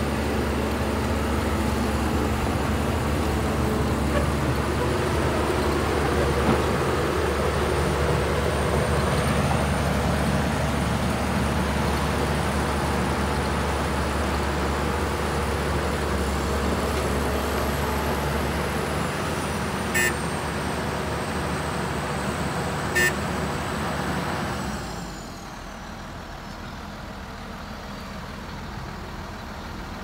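Shantui crawler bulldozer's diesel engine running under load as it pushes sand, with a thin high whine above it. Two short clicks come a few seconds apart. Near the end the sound drops noticeably and the whine falls in pitch.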